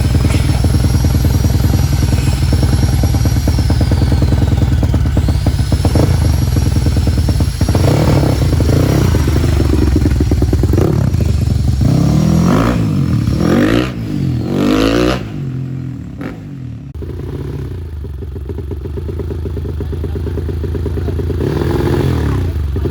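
Four-stroke trail motorcycle engines running and revving, the pitch rising and falling. The sound is loud and steady at first, eases off about fourteen seconds in, then builds again toward the end.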